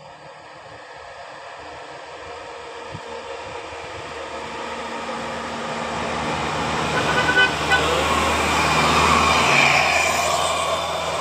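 A bus drawing near, its running noise growing steadily louder and loudest near the end, with two short horn toots about seven and a half seconds in.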